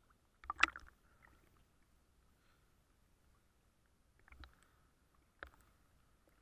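Seawater slapping and sloshing against a waterproof camera housing at the surface, heard muffled through the housing: a quick cluster of knocks and splashes about half a second in, another just past four seconds and a single knock about five and a half seconds in.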